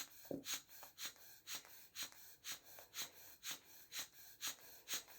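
Hand bulb of a blood pressure cuff being squeezed over and over, about two faint puffs of air a second, as the cuff is slowly inflated.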